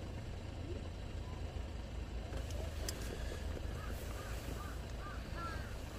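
A steady low rumble, with a bird chirping in a quick series of short, arching notes from about halfway through.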